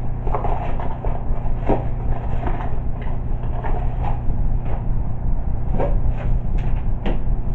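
Cardboard packaging and parts being handled and moved about, with scattered short knocks and rustles over a steady low hum.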